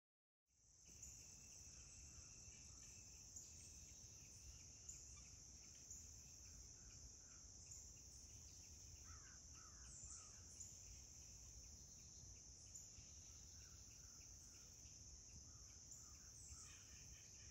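Faint insect chorus, a steady high-pitched drone, with a few faint bird calls about the middle and again near the end.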